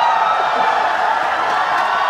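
Concert audience cheering and screaming, many voices at once with high whoops, right after the a cappella song.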